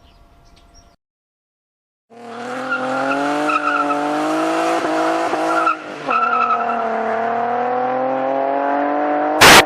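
A car engine running hard at high, steady revs, its pitch wavering slowly, with a tyre-squeal edge. It starts about two seconds in after a moment of silence and breaks into loud distorted bursts near the end.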